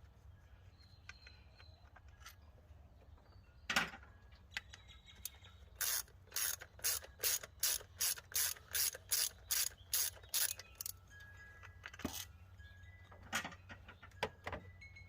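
Hand ratchet wrench clicking in a quick run of about a dozen strokes, about three a second, as it backs out one of the throttle body's 8mm mounting bolts. A few single clicks and knocks come before and after the run.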